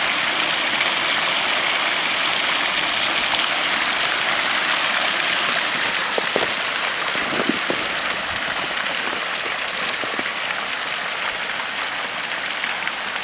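Pump-fed water spilling out of a Skippy biofilter and splashing down a rock waterfall into a pond: a steady rushing splash that eases slightly about halfway through.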